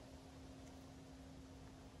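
Near silence: faint outdoor background with one low, steady hum.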